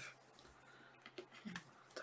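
Near silence: room tone with a faint hum, and a few faint soft ticks about a second in from trading cards being handled.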